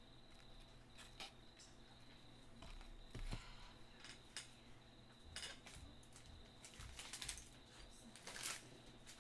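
Faint, scattered light clicks and knocks of small objects being handled on a tabletop, with a few louder ones spread through, over a faint steady high-pitched whine.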